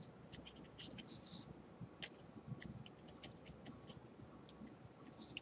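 Black marker pen writing on paper: faint, irregular scratchy strokes as letters are drawn.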